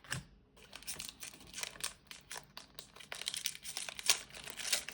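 Foil Pokémon booster pack wrapper crinkling and tearing as it is ripped open, a quick run of sharp crackles.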